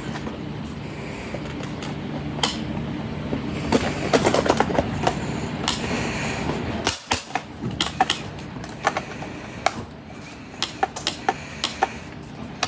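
Scattered sharp clicks and knocks of an alarm clock being handled, over a steady low hum that cuts out about halfway through.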